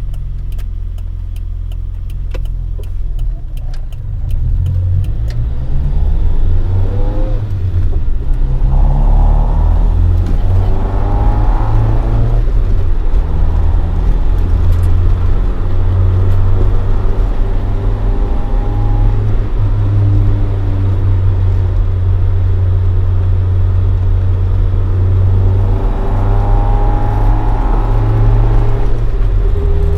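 Toyota AE86 Sprinter Trueno with a swapped AE111 20-valve 4A-GE engine on four individual throttle bodies and a Fujitsubo Legalis R exhaust, driving. The engine is lighter at first, then accelerates with its note climbing through the revs twice in the first half and again near the end, settling between pulls.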